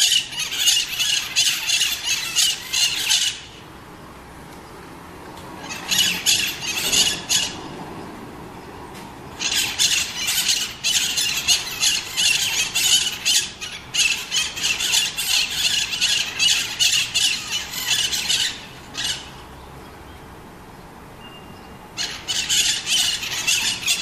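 Maritaca parrots screeching in rapid runs of shrill calls, in four bouts: a short one at the start, another about six seconds in, a long one of about nine seconds in the middle, and a last one near the end.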